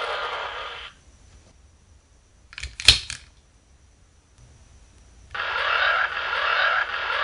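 Electronic sound effects from a toy transformation device's small built-in speaker: one sound fades out in the first second, a sharp plastic click comes about three seconds in, and another electronic sound starts abruptly a little after five seconds.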